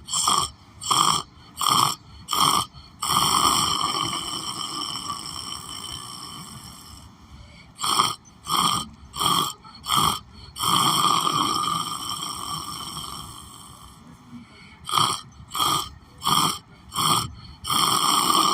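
A person snoring in a repeating cycle: a run of five short snorts about half a second apart, then one long drawn-out snore that slowly fades, three times over.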